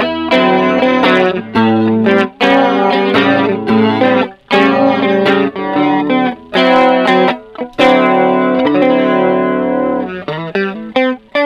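Electric guitar strumming chords and ringing notes through an analog chorus pedal, struck one after another with a couple of short breaks.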